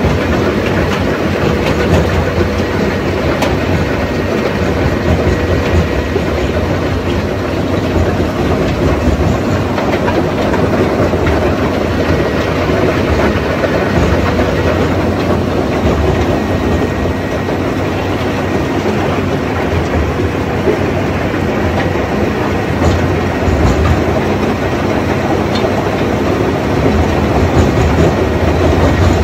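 TESAB 1150TC tracked cone crusher running under load, crushing rock: a loud, steady rattling din of stone going through the crusher and onto the conveyors.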